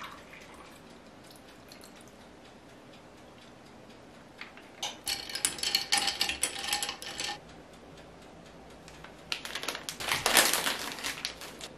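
Dishes and cutlery clinking and clattering in two spells of a couple of seconds each, the first about five seconds in and the second near ten seconds.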